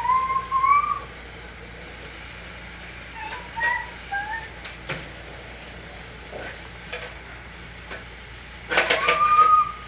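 Short, rising whistle-like tones, then near the end a longer steady whistle tone. The last tone comes with a cluster of clicks and knocks from plastic toy train pieces being handled.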